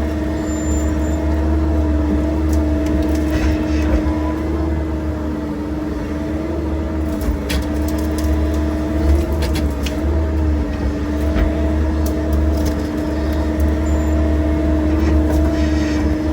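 Excavator's diesel engine running steadily under load, heard from inside the operator's cab, with a steady droning whine over a low rumble. A few short sharp cracks and clicks come through, one around seven seconds in.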